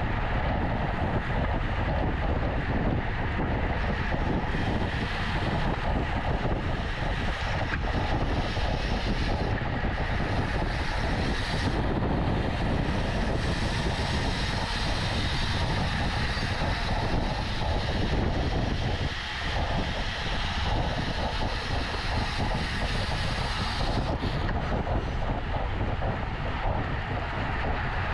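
Steady wind rush over the microphone of a camera on a road bike ridden at race speed, heaviest in the low rumble and easing briefly about two-thirds of the way through.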